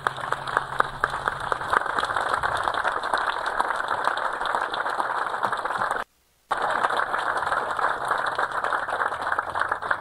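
Seated outdoor audience applauding, a steady dense patter of many hands clapping, cut off briefly about six seconds in.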